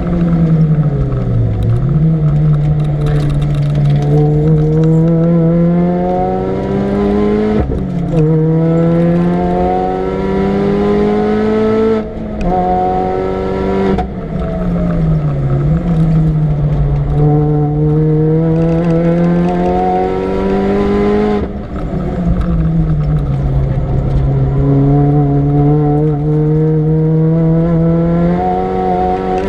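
Supercharged 1.6-litre four-cylinder engine of a Mini Cooper S R53, fitted with a TVS900 supercharger, pulling hard at full throttle. The revs climb steadily and drop sharply at gear changes, a few times, with slower falls in pitch as it slows for corners.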